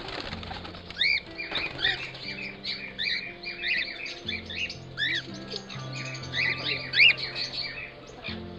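A flock of cockatiels chirping and squawking, many short rising-and-falling calls one after another, the loudest about one, five and seven seconds in, over background music with long held low notes.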